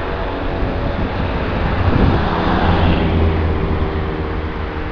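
Jet engines of an Airbus A318 airliner rolling along the runway past the camera: a steady engine drone with several whining tones and a rushing noise, swelling to its loudest about two to three seconds in as the jet passes, then easing.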